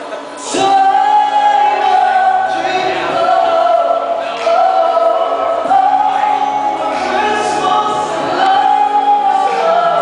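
A pop Christmas song: a lead vocal over a backing track, with choir-like backing harmonies and long held notes, played loud through a PA system.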